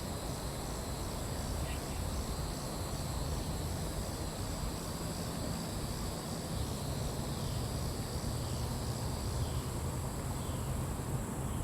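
Steady high-pitched insect chorus, evenly pulsing, over a low steady rush.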